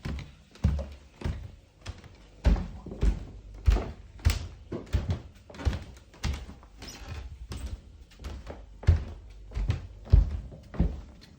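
Footsteps walking at an even pace on a hard floor, with one heavy, thudding step about every half second and some steps landing harder than others.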